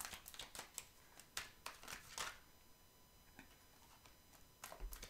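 Deck of tarot or oracle cards being shuffled by hand: a quick run of soft card clicks for about two seconds, a pause, then a few more near the end.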